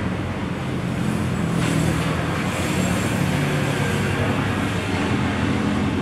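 Steady road-traffic noise with the low drone of motor vehicle engines running.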